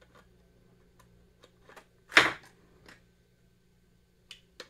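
Small plastic clicks and taps of a Tesmen TM-510 multimeter being handled while its battery-cover screw is undone with a screwdriver, with one much louder clack about two seconds in and a couple more clicks near the end.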